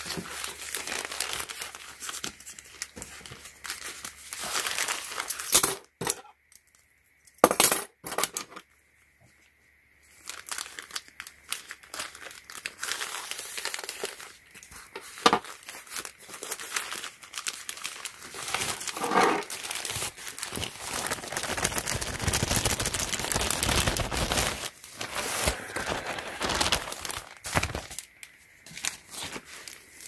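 Plastic mailer bags crinkling and rustling as they are handled and pulled open, with a few sharp loud crackles and a pause of several seconds about a quarter of the way through.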